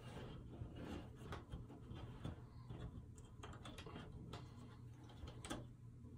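Paperboard jigsaw puzzle pieces being handled on a tabletop: a scatter of faint, irregular little clicks and taps as pieces are slid and pressed together, with one sharper click about five and a half seconds in.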